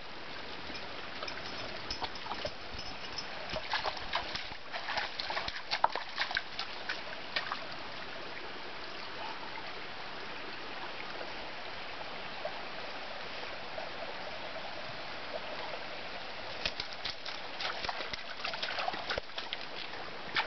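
Shallow mountain stream trickling over rocks, with dogs splashing as they wade in the water. The splashing comes in two spells of quick splashes and clicks, from about two to seven seconds in and again near the end.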